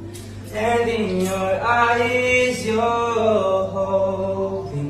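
A man singing without accompaniment, holding long sliding notes with no clear words, after a short breath-like gap about half a second in.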